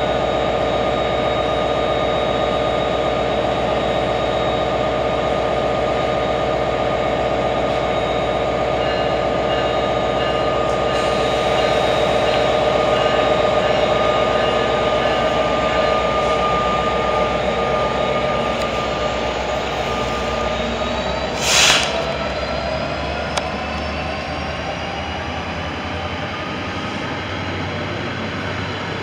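NJ Transit commuter train standing at the platform, its locomotive running steadily with a hum and several held tones. About 22 s in there is a short hiss of air, and then the train starts moving with a whine that slowly rises in pitch as it gathers speed.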